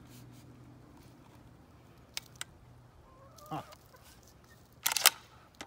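Chickens clucking, with a few light clicks as the shotgun is handled. About five seconds in comes a brief, much louder burst of sharp sounds, the loudest moment.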